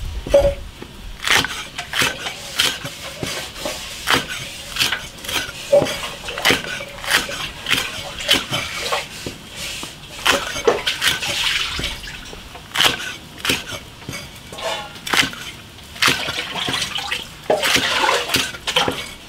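Water sloshing and splashing, with irregular knocks and clatters about one or two a second.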